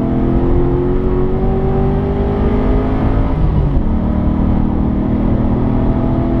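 Modified HSV GTS V8 with an aftermarket cam accelerating hard, heard from inside the cabin: the engine note climbs steadily, drops with an upshift about three and a half seconds in, then climbs again.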